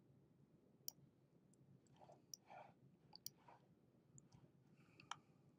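Faint, scattered clicks of a computer mouse and keyboard, a handful of sharp clicks spread over a few seconds, over a low, quiet room hum.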